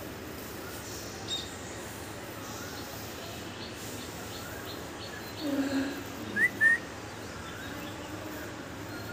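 Outdoor background with scattered bird chirps. The loudest are two short rising chirps in quick succession a little after six seconds in, just after a brief lower sound.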